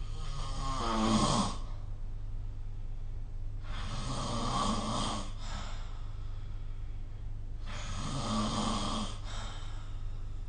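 A person snoring in sleep: three snores about four seconds apart, each lasting about two seconds.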